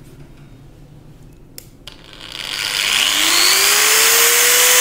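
Makita 9553B angle grinder starting: after two short clicks its motor spins up gently, the whine rising in pitch over about a second and a half before it settles into a steady full-speed run. This slow run-up is the work of a soft-start module wired in after the switch.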